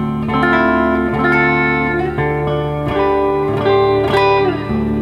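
2013 Gretsch White Falcon G6136T hollow-body electric guitar played on its neck Filtertron pickup through a Laney amp: a slow phrase of picked chords and single notes that sustain, with a few notes dipping in pitch about four seconds in.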